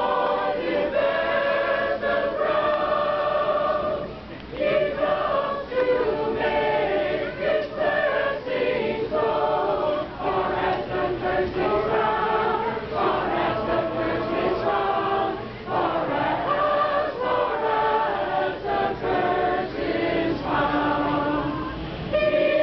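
A group of men and women singing a Christmas carol together in sustained phrases, with a short dip between lines about four seconds in.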